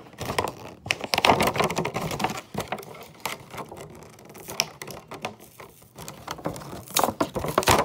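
Toy packaging of cardboard, plastic and paper being handled and unpacked: rapid irregular clicking and rustling, with a few louder clicks near the end.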